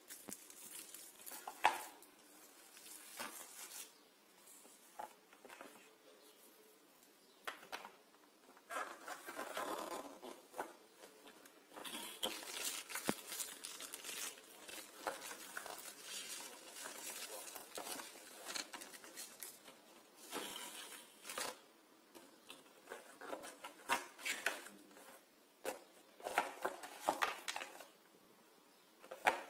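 Hands unpacking a tablet's retail box: cardboard lid and tray pieces sliding and knocking, with plastic wrap and a plastic accessory bag rustling and crinkling, in irregular bursts with sharp clicks.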